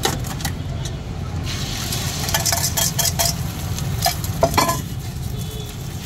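An egg omelette being made on a flat iron griddle: sharp metal clinks and taps of a spoon and spatula against a steel bowl and the griddle, with light sizzling. Under it runs a steady low rumble.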